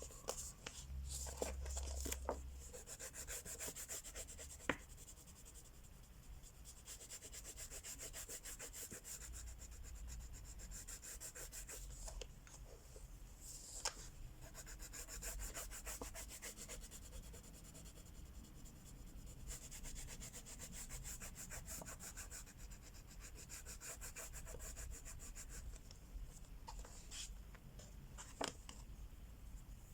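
Wax crayon rubbing on the paper of a coloring book in quick back-and-forth strokes, with a few sharp clicks scattered through.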